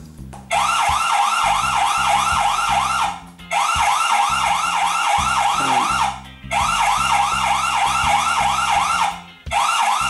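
ENER-J home security alarm siren sounding: a loud electronic wail of fast rising whoops, about four or five a second, in runs of about three seconds with short breaks, starting about half a second in. It is the alarm tripped by the armed door sensor, still going while the system is being disarmed.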